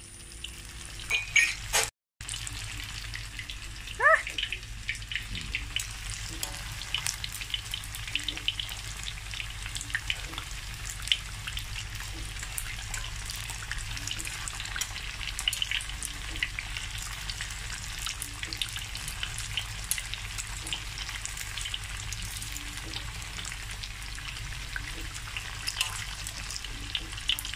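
Tofu deep-frying in a wok of hot oil: a steady sizzle full of fine crackling pops. It cuts out for a split second about two seconds in, and a short rising squeak sounds about four seconds in.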